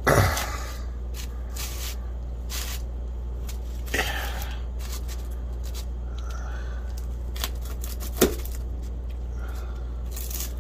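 A kitchen knife cutting through a crunchy thin-crust pizza, the crisp crust crackling and the blade scraping, with louder clicks near the start, about four seconds in and about eight seconds in. A steady low hum runs underneath.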